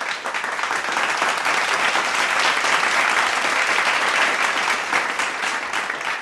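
An audience applauding: a dense, steady clapping that builds over the first second and begins to fade near the end.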